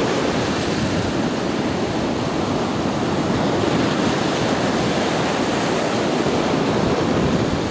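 Surf breaking and washing up a sandy beach: a steady, unbroken rush of waves.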